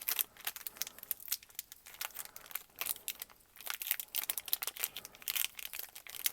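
Foil wrapper of a Pokémon card booster pack crinkling in the hands as it is handled and worked open, a dense run of irregular crackles.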